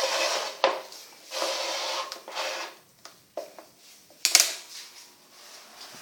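Handling noises: stretches of rubbing and scraping broken by sharp clicks, with one loud clack about four and a half seconds in.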